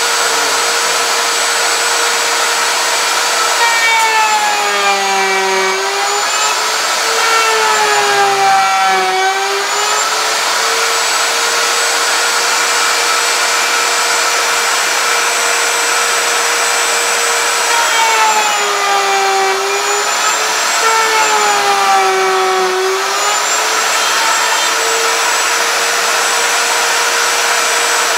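Table-mounted wood router running with a steady high whine, its pitch sagging repeatedly in two spells as the bit takes a deep cut through a plywood block fed back and forth along the fence to rout a half-inch slot. Near the end the router is switched off and its pitch starts to fall as it winds down.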